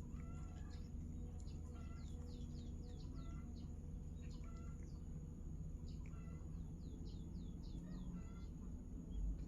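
Small birds chirping: many short, falling calls in quick runs, over a steady thin high-pitched whine and a low background rumble.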